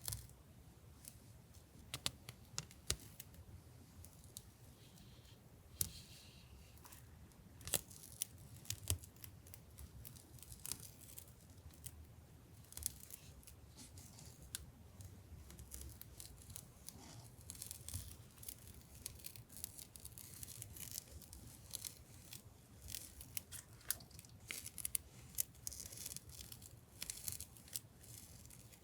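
Stationery packaging being handled and torn open by hand: crinkling, tearing and scattered light taps and clicks, busier in the second half. A faint steady low hum runs underneath.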